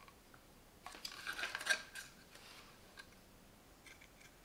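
Light clicks and rattling as a bare battery-charger circuit board is handled and turned over in the hands, clustered about a second in, then a few faint ticks.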